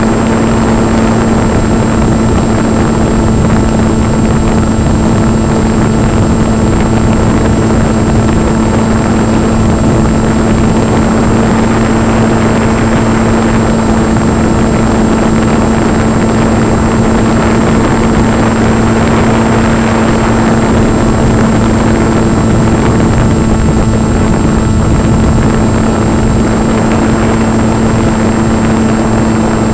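Onboard sound of a Hobby King EPP FPV electric model plane in flight: the motor and propeller drone at a steady pitch under a constant rush of wind over the camera, with a thin high whine on top.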